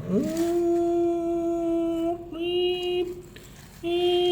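A man's voice holding long, steady hummed notes at one pitch: a long note of about two seconds, a shorter one straight after, then a brief pause and one more short note near the end.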